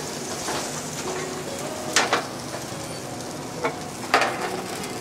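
Roasting lamb sizzling steadily in a Denizli kebab oven, with a few sharp clatters of handling at the oven mouth. The loudest clatters come about two seconds in and just after four seconds.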